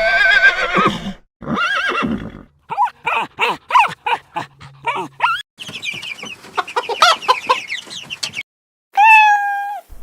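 A run of separate farm animal calls, one after another: a horse whinnying with a wavering pitch, then a quick series of short clucks like a hen's, and a cat meowing in one long, level call near the end.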